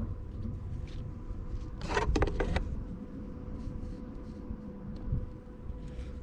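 Handling noise as a part is removed: a short clatter of clicks and rattles about two seconds in, with a few fainter ticks, over a low background rumble and a faint steady hum.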